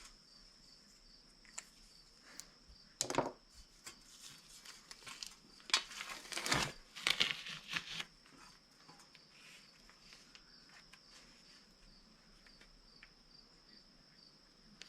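Tape being handled, pulled and torn in several crinkly bursts between about three and eight seconds in, over a steady high cricket trill.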